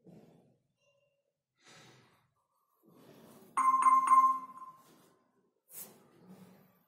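About three and a half seconds in, a bright bell-like chime dings in a quick run and fades within about a second, the loudest sound here. Around it come faint, soft breaths.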